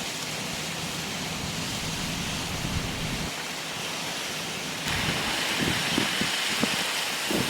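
Steady rushing noise of a severe thunderstorm's wind and rain. About five seconds in it turns louder and hissier, with low gusts buffeting the microphone near the end.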